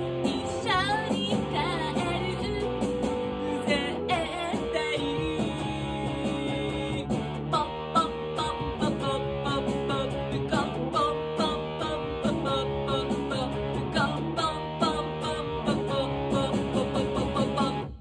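Electric guitar played through an Effects Bakery New Ginger Fuzz pedal, strumming and picking a pop song while a woman sings along. The music stops abruptly at the very end.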